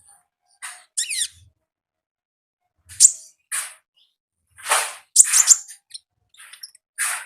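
A konin songbird singing in short, high, chirping bursts with quick sliding notes, the calls coming in separate phrases and densest about two-thirds of the way through.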